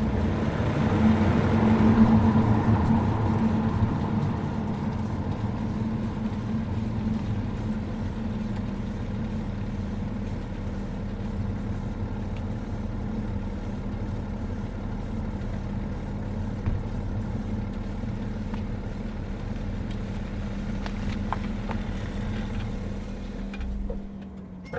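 Road and tyre rumble of a BMW G21 330d xDrive heard from inside its rear wheel arch while driving, with a steady low hum underneath that does not change pitch. The owner is hunting a vibrating drone he traced to the brake vacuum pump, carried along its vacuum pipe into the body. The sound falls away near the end.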